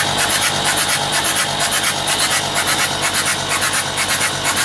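Perkins 4.248 four-cylinder diesel turned over on its starter at cranking speed, giving an even, quick, raspy beat. The engine is being cranked to build oil pressure, about 3 bar at cranking speed.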